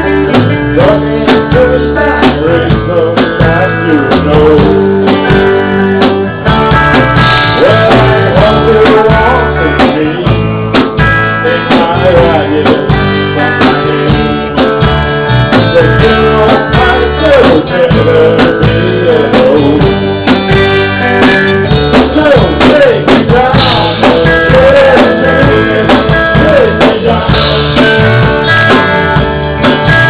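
Live band playing guitar-led country rock over a steady drum beat, with a lead line that bends in pitch.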